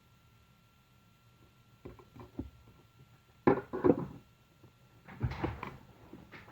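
Handling noise at a soldering bench: several short clusters of knocks and clatter as tools and parts are picked up and set down, the loudest about halfway through. A faint steady high-pitched tone runs underneath.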